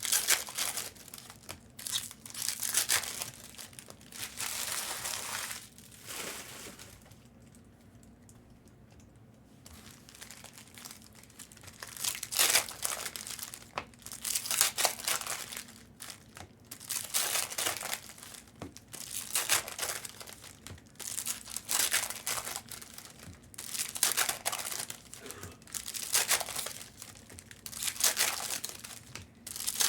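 Trading-card pack wrappers crinkling and tearing as packs are opened and handled, in repeated short bursts every second or two, with a short lull about seven seconds in.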